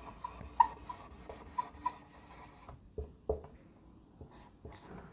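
Dry-erase marker writing on a whiteboard: faint squeaks and scratching of the felt tip, with two sharp taps about three seconds in.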